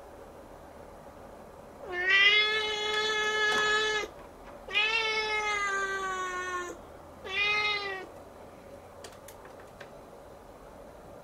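Siamese kitten meowing: two long, drawn-out meows of about two seconds each, then a shorter third, each held at a fairly steady pitch.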